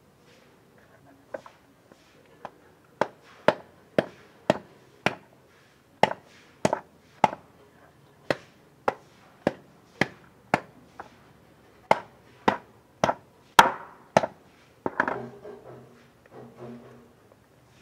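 Knife chopping through a chicken carcass on a hard surface: a long run of sharp chops, about one to two a second, ending in a brief jumble of knocks and handling.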